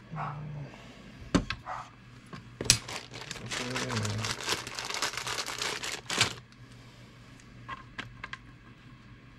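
Two sharp clicks, then about three and a half seconds of crinkling, as of plastic packaging being handled, stopping abruptly.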